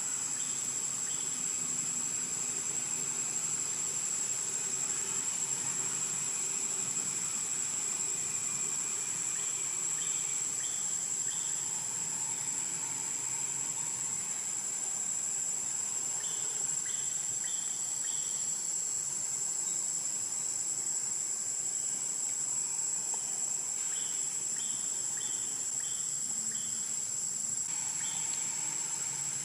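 Steady, high-pitched drone of insects, with several short runs of quick chirps.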